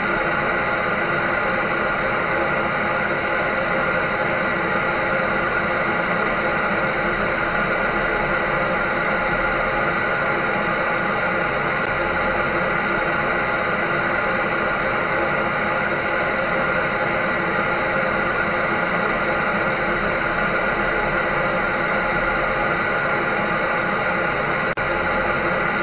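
Clothes dryer running: a steady, even whooshing noise with a constant motor hum that does not change.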